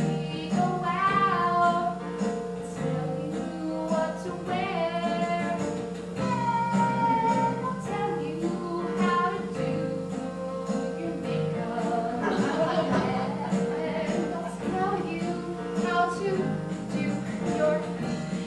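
A woman singing a solo melody over an instrumental accompaniment of steady, held chords.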